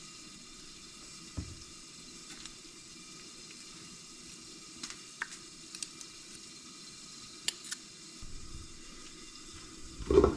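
Faint, steady sizzle of food frying in oil in a skillet, with a few light clicks.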